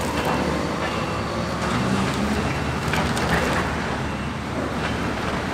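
Steady city road traffic: a continuous rumble of passing cars and buses.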